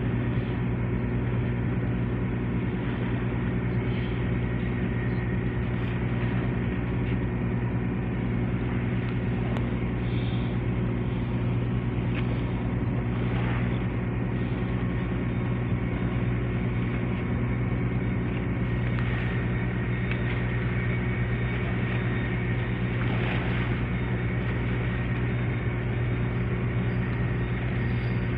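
A large engine running steadily at constant speed: a low, even drone with a steady hum that does not change.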